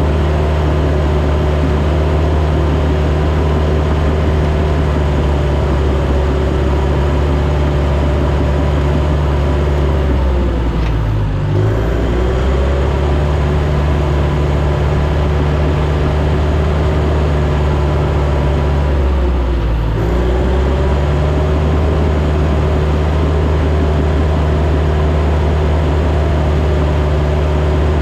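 Diesel engine of heavy equipment running steadily at high revs. Its pitch sags twice as it bogs under load, about 11 seconds in and again about 20 seconds in, then recovers.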